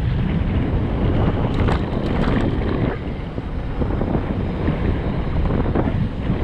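Riding wind buffeting the GoPro Hero 7 Black's microphone on a descending mountain bike, with the rumble of the Radon Swoop 8.0 AL enduro bike rolling over the dirt trail. A short cluster of sharp clicks and rattles comes a second and a half to two and a half seconds in.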